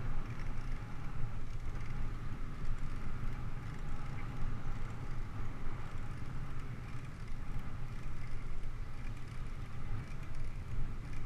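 Steady low rumble of a bicycle rolling along a smooth paved path, picked up by a camera mounted on the handlebars.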